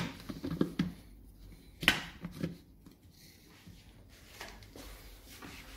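Plastic clicks and knocks from a blender jar and its lid being fitted and handled: a few sharp clicks in the first two and a half seconds, the loudest about two seconds in, then quiet. The blender motor is not running.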